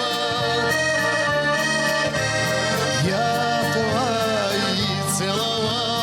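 Accordion music: a melody with sustained chords played on an accordion.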